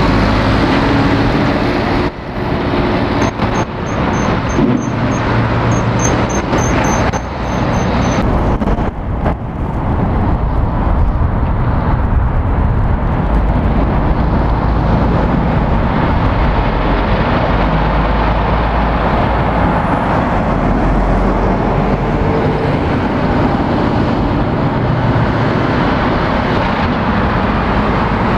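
Diesel engines of heavy articulated lorries running as they pass close and go round a roundabout, with tyre and road noise; the low engine rumble is steady throughout. Some sharp knocks and brief dips in level come in the first several seconds.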